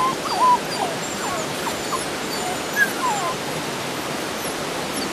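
Eight-week-old Belgian Malinois puppies whimpering: a handful of short, high, sliding whines in the first few seconds, then a pause.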